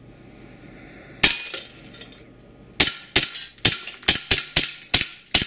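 KWC Desert Eagle .50AE gas-blowback airsoft pistol firing: a single sharp crack a little over a second in, then a quick string of about nine more shots in under three seconds.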